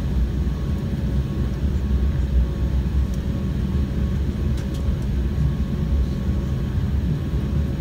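Cabin noise of a jet airliner taxiing after landing: a steady low rumble with a faint steady hum over it.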